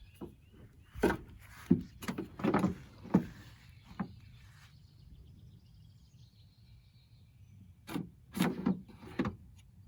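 Sharp knocks and clicks from handling hardware against a van's metal body, in two clusters: several between about one and three seconds in, and more near the end.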